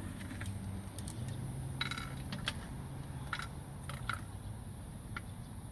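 Scattered light metal clinks and taps, a dozen or so at irregular intervals, over a low steady hum.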